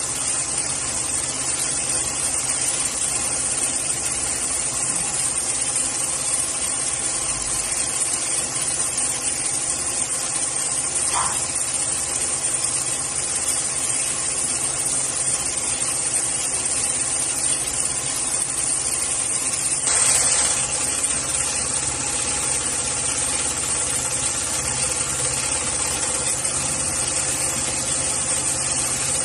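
Steady running noise of an automatic industrial pattern sewing machine stitching thick polyester lifting-sling webbing, with a brief click about eleven seconds in and a short louder rush about twenty seconds in.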